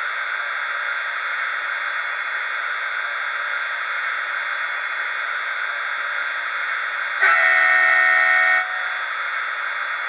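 Sound decoder of an N gauge ÖBB Taurus electric locomotive model, standing still, giving out a steady hiss; about seven seconds in it sounds its horn, one loud blast of several tones together lasting about a second and a half.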